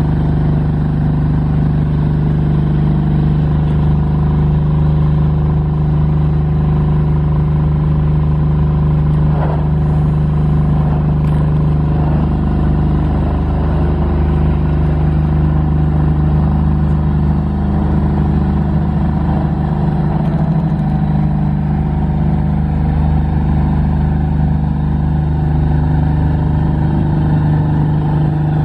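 Kohler diesel engine of a TowerLight VB-9 lighting tower, driving its 5 kVA generator and running at a steady speed with an even hum while it powers the four 400 W metal halide lamps.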